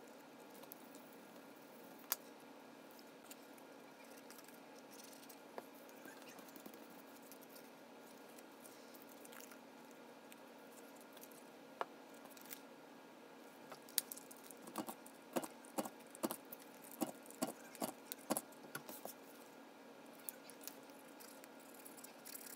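Small cardstock cards and paper pieces being handled, folded and set down on a wooden tabletop: faint rustles and scratches, with a run of light taps and clicks about two-thirds of the way through, over a steady low hum.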